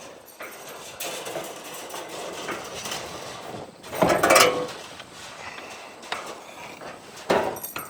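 Scattered metal clicks and knocks of a wrench loosening the top nut on a new Aermotor windmill gearbox and the cover being handled, with a louder brief clank about four seconds in and another near the end.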